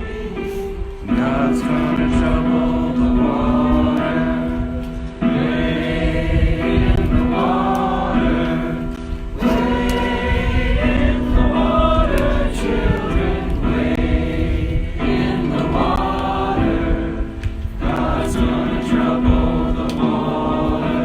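A group of people singing together in phrases about four seconds long.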